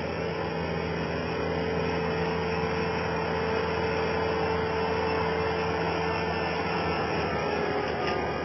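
A skid steer loader's engine running steadily, a continuous hum with a few held tones.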